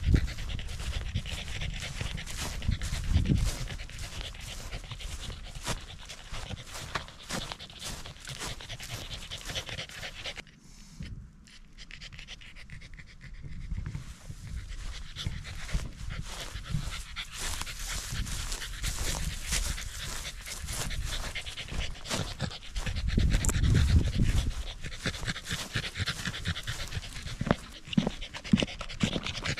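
Corgi panting, with its breaths coming in a quick, even run. There is a quieter stretch a little past a third of the way in, and a brief low rumble about three quarters of the way through.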